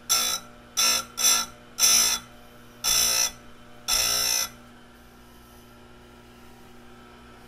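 Bench chainsaw-chain grinder with a CBN wheel grinding a saw-chain cutter tooth: six short grinding passes as the wheel is dipped onto the tooth, each a harsh, ringing grind, over the steady hum of the running motor. The passes stop about four and a half seconds in, and the motor hums on.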